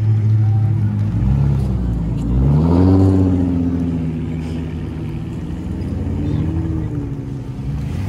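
Engines of American cars, a Dodge Magnum and Chrysler 300s, rumbling as they drive slowly past one after another. One engine revs up with a sharp rise in pitch about two to three seconds in, and another brief rise comes near the end.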